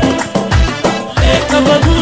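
Nubian song playing, with a heavy drum beat about twice a second under a gliding melody.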